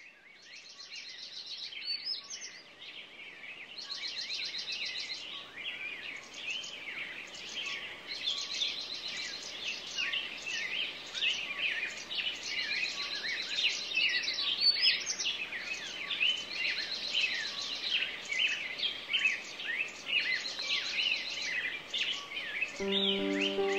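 A chorus of several songbirds chirping and trilling, with repeated rapid trills over the busy calls, fading in over the first few seconds. Near the end a few held notes of music begin.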